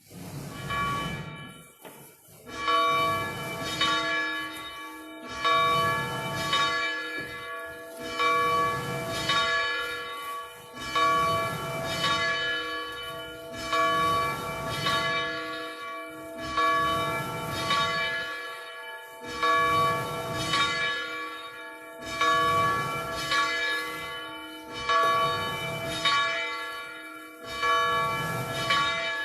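Church bell ringing at a steady swing, a stroke about every second and a half, its tones ringing on between strokes; it starts right at the beginning.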